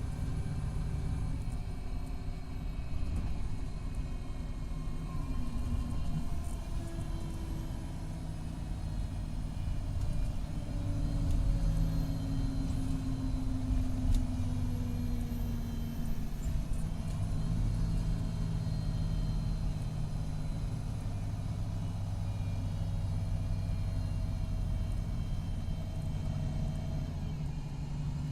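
An MCI D4500CT coach's Cummins ISX12 diesel and Allison B500R automatic transmission running under way, a steady rumble whose pitch rises and falls several times. The transmission is failing, in its last stages.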